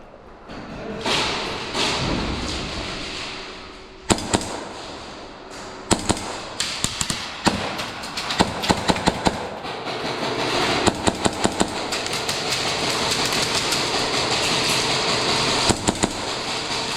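Airsoft guns firing during play: scattered single shots and quick bursts of rapid sharp cracks, over a steady rushing noise.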